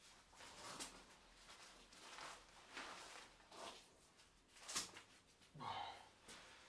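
Faint rustles and scrapes of a weighted vest being put on and its straps adjusted, in short separate strokes, the sharpest a little under five seconds in.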